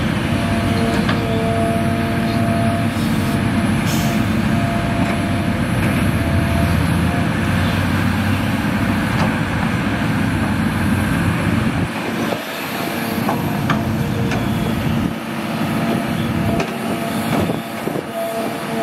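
Hitachi Zaxis 350H excavator's diesel engine running under load as it digs and loads soil, with a steady high whine over the engine note. A few sharp knocks sound through it, and the deep rumble eases about two-thirds of the way through.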